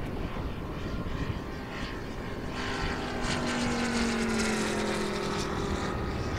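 Moki radial engine and propeller of a giant-scale RC Focke-Wulf Fw 190 flying past overhead. It gets louder about halfway through, and its note falls as the plane passes and moves away.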